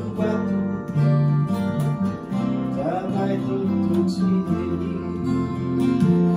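A small band playing a song together: strummed acoustic guitar over electric bass and electronic keyboard.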